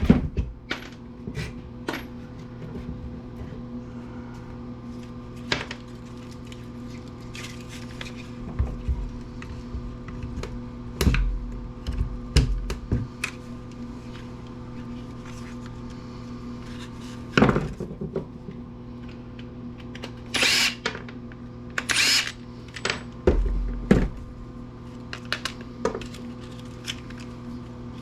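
Clicks, knocks and thumps of metal and plastic parts as a Black & Decker electric wood planer is taken apart, with a few short whirs of a power drill. A steady hum runs underneath.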